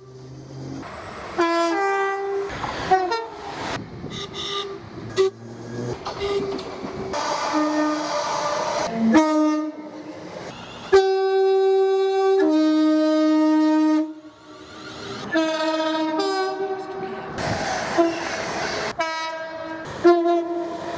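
Train horns sounding in a run of two-tone blasts, mostly short, with a long high note dropping straight to a long low note about halfway through, over the noise of a passing train.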